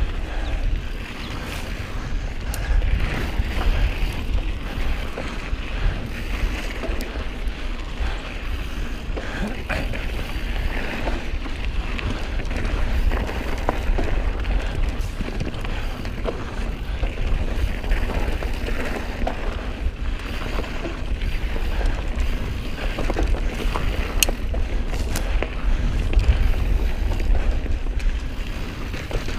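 A Specialized Stumpjumper mountain bike riding fast down dirt singletrack: a steady rumble from knobby tyres on the dirt, mixed with wind buffeting the action-camera microphone. Occasional sharp clicks and rattles come from the bike.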